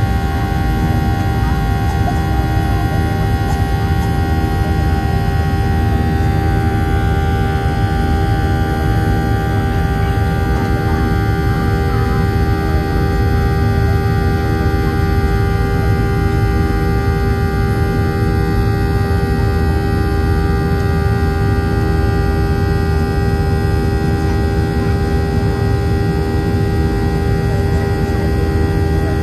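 Boeing 737 turbofan engines heard from inside the cabin beside the wing, running at climb power just after takeoff: a loud, steady deep rumble with several steady whining tones above it.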